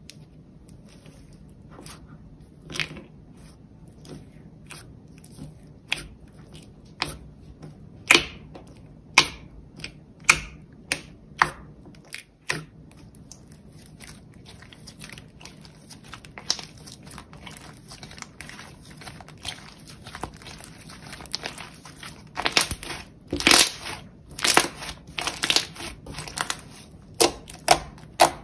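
Thick slime being squeezed, stretched and poked by hand, giving irregular crackles and pops. They are scattered at first and come thicker and louder in the last few seconds.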